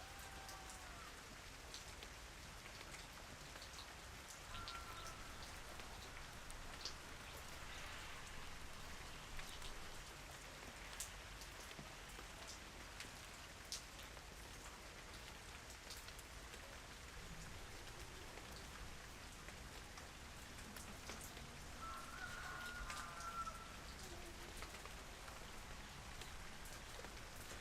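Steady, gentle rain falling on surfaces, with scattered individual drops ticking. A few brief faint chirps sound through it, the clearest about 22 seconds in.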